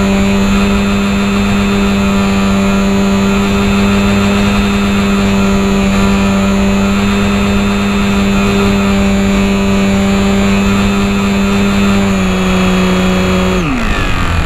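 Small electric motor and propeller of a HobbyZone Champ RC plane running at a steady high speed, heard from on board with air rushing past. Near the end the motor winds down, its pitch falling sharply.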